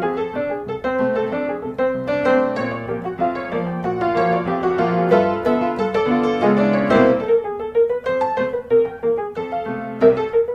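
Background piano music: a continuous run of struck notes and chords.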